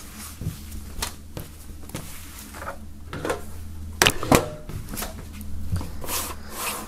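Handling noise as a cotton T-shirt and disc cases are gathered up and moved, then a metal tin box knocks twice on a wooden table about four seconds in, followed by lighter handling of the tin.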